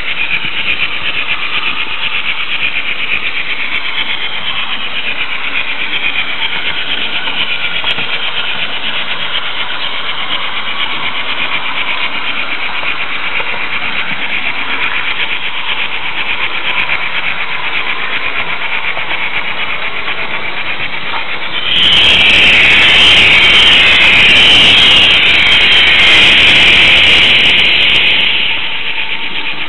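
Märklin H0 model train running along the track, heard from a camera riding on a flat car: a steady, high-pitched rolling and rattling noise of wheels and running gear. About 22 s in it turns louder and harsher for about six seconds, then drops back to its earlier level.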